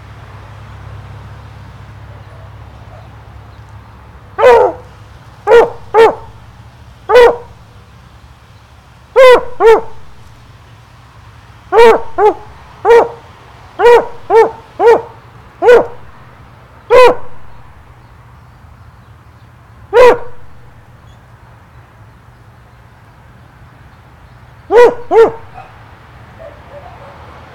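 A dog barking in short single barks and quick pairs, about sixteen at uneven intervals, with a longer pause of several seconds near the end. A faint steady low hum runs underneath.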